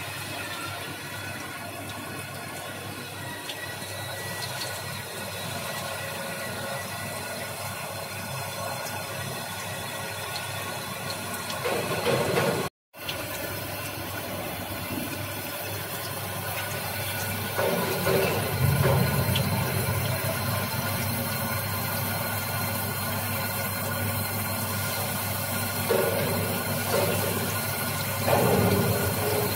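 A diamond wire loop saw runs steadily as it cuts through a clear block, with coolant water pouring onto the cut and splashing off the worktable. The sound swells a few times, and it cuts out briefly a little under halfway through.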